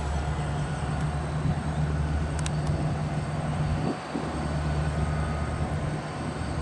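Two EMD SD70M diesel-electric locomotives, each with a turbocharged two-stroke V16 diesel, running under load as they pull a freight train. They make a deep, steady engine drone whose lowest rumble drops back about four seconds in.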